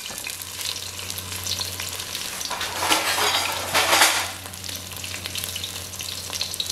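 Whole shallots, garlic, ginger and green chilies sizzling in hot oil in a stainless steel pot while a steel spoon stirs them, sautéed almost to the right stage. The stirring and sizzle get louder around three to four seconds in.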